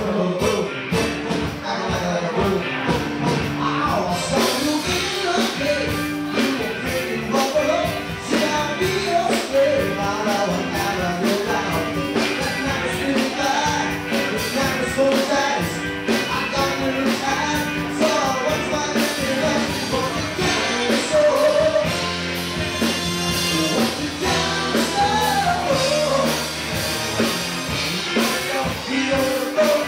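Loud, upbeat song with a singer over a steady driving beat.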